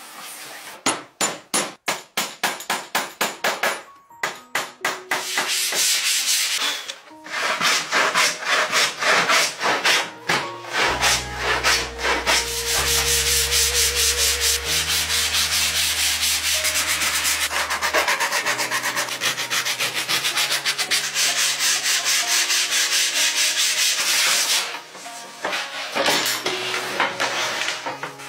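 Sandpaper rubbed by hand over the old lacquered wood of a chest in quick back-and-forth strokes. The strokes are separate at first, about three a second, then run together into a steady, pulsing rubbing through most of the stretch, easing off near the end.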